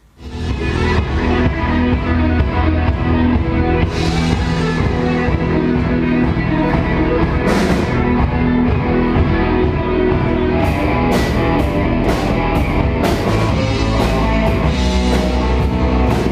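Rock music with electric guitar and drums, starting abruptly and playing loud and steady, with cymbal crashes in the later seconds.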